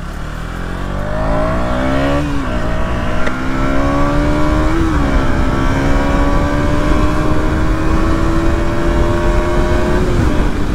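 KTM Duke 200's single-cylinder engine accelerating hard through the gears. Its pitch climbs and drops at upshifts about two and five seconds in, then rises slowly in a higher gear and drops again near the end, over wind rush on the microphone.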